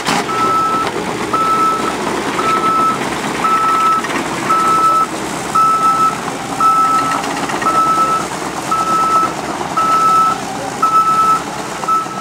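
A heavy machine's back-up alarm beeping steadily, one tone about one and a half times a second, over the rumble of engines. A short sharp knock sounds right at the start.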